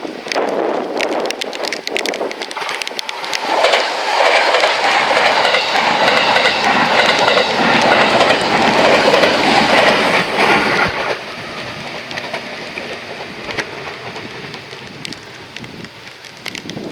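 A JR Kyushu electric train passing, its wheels clattering over the rail joints. The noise is loudest for several seconds, then drops off sharply about eleven seconds in as the train moves away.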